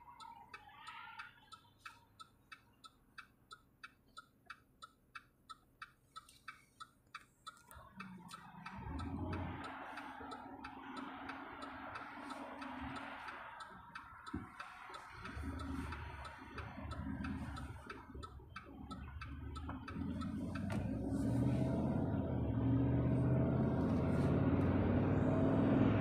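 Car's turn-signal indicator ticking steadily inside the cabin, about three ticks a second, stopping about eight seconds in. Then engine and tyre noise as the car drives off, growing louder from about twenty seconds in.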